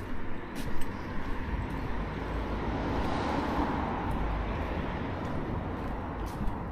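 A car driving past on the road: its tyre and engine noise swells to a peak about three seconds in, then fades slowly.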